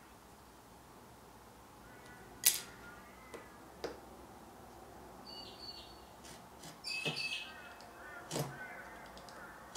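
A chisel tapping and clicking on hoop pine kumiko strips held in a cutting jig, cleaning the waste out of the sawn joints: a few scattered sharp clicks, the loudest about two and a half seconds in. Birds call faintly in the background.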